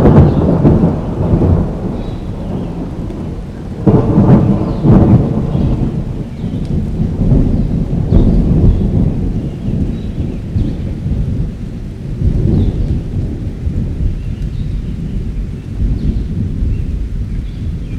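Thunderstorm: rolling thunder rumbling continuously over steady rain. The loudest peal swells about four seconds in, and weaker rumbles come and go after it.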